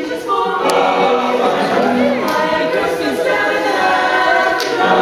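Teenage male choir singing in several-part harmony.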